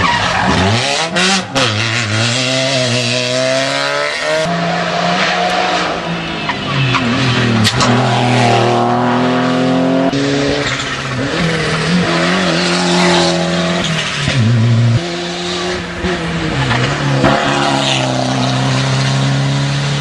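Rally car engine revving hard, its pitch climbing and then dropping again several times over as it accelerates and lifts off. There are a couple of sharp cracks about a second in.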